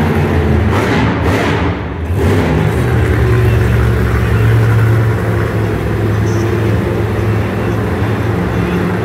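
Monster truck engine running loud at high revs as the truck drives and pulls a wheelie. It pulses in the first couple of seconds, then holds a steady low drone from about two and a half seconds in.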